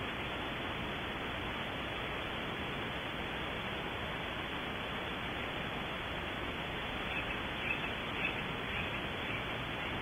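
Steady hiss, with a few faint short chirps about seven to nine seconds in.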